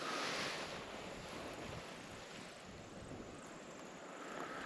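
Wind blowing over the microphone: a steady rush of outdoor noise, slightly stronger right at the start.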